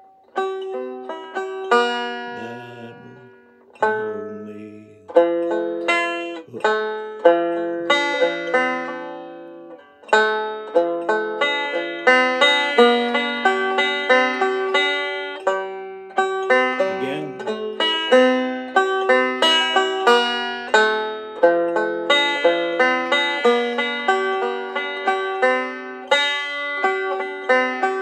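Five-string banjo fingerpicked in the key of C: slow, separate notes and chord strums left to ring for about ten seconds, then a steady run of picked rolls carrying the melody.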